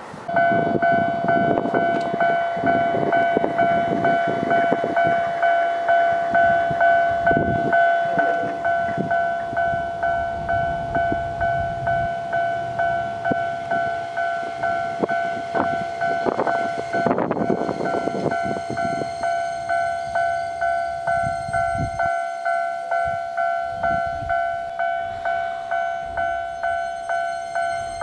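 Japanese railway level-crossing warning bell starting up and ringing its two-tone electronic "kan-kan" clang steadily, about two strokes a second, as the crossing closes for an approaching train. A short burst of noise cuts across it about seventeen seconds in.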